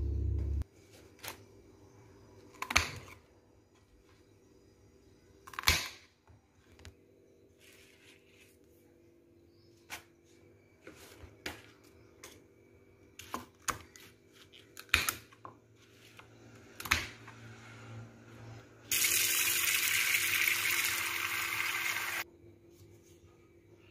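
Scattered knocks and clicks from handling chard stems on a plastic cutting board. Near the end, tap water runs into a stainless steel pot for about three seconds as a steady rushing splash, then is cut off sharply.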